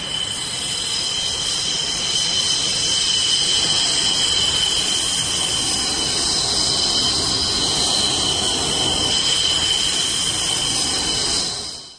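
Jet aircraft engine running steadily: a loud rushing roar with a high whine held at an even pitch. It cuts off abruptly near the end.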